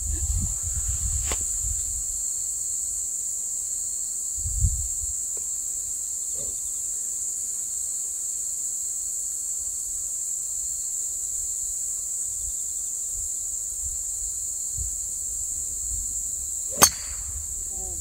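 A steady high-pitched chorus of insects, with a few low rumbles of wind on the microphone. Near the end comes a single sharp crack: a golf driver striking the ball off the tee.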